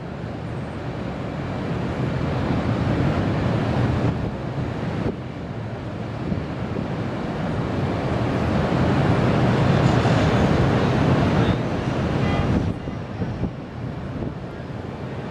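Wind buffeting the microphone in gusts, a loud low rumble that swells and eases, strongest about two-thirds of the way through.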